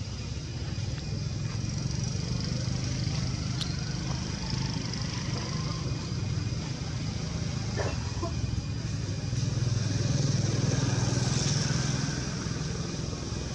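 Steady low engine rumble that grows louder about ten seconds in, with a couple of faint clicks.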